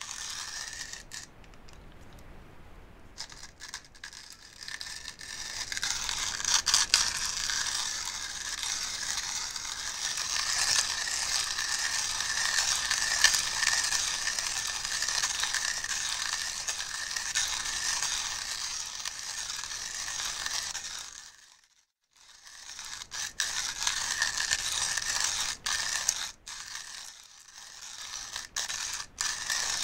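Coffee grinder grinding beans. The grinding stops for about a second roughly two-thirds of the way through, then starts again and runs more unevenly.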